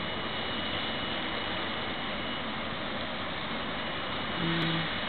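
Electric multiple unit standing at the platform with its on-board equipment running: a steady hiss and hum with a thin, steady high whine. A brief low tone sounds about four and a half seconds in.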